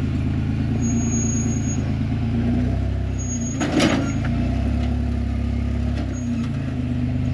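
Rock buggy engine running at low revs while crawling over boulders, with small throttle changes. A single short, loud knock sounds about halfway through, the loudest moment.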